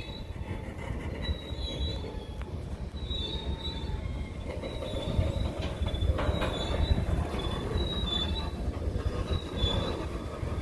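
Freight train cars rolling by with a steady low rumble, their wheels giving short, repeated high-pitched squeals.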